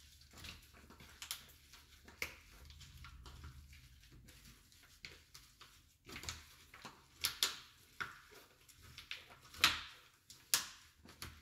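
Hands kneading raw minced pork with spices in a plastic tub: irregular wet squelches and smacks, louder and more frequent in the second half.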